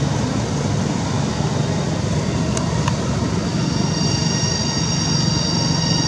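Cicadas singing in a steady, loud drone over a low rumble; a little past halfway a higher, steady whine of several pitches joins in and holds.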